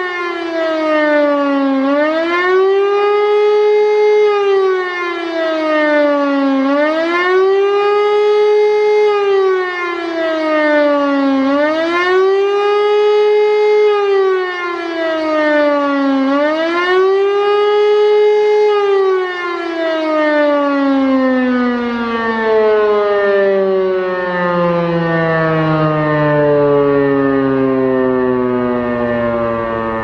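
E57 civil-defence motor siren sounding the 'Warnung' signal, its pitch swelling up and down about every four and a half seconds. After the fourth swell, about two-thirds of the way through, it stops rising and the pitch glides steadily down as the rotor runs down.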